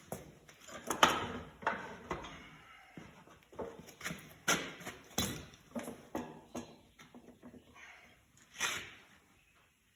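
Irregular knocks and clatters of metal parts being handled while taking apart an E4OD automatic transmission. The loudest knock comes about a second in, and a last one comes near the end.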